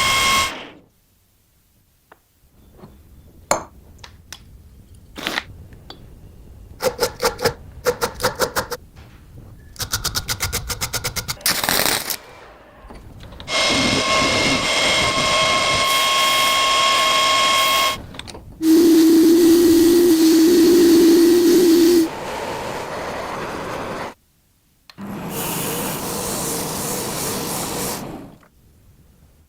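Workshop restoration sounds in separate spells: scattered clicks and quick runs of rapid rattling ticks, then a power tool running steadily for several seconds, a louder, lower motor hum for about three seconds, and more steady tool noise near the end.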